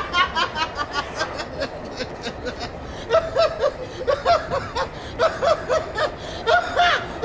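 A man laughing over and over: runs of quick, repeated ha-ha pulses, several runs with short breaks between them.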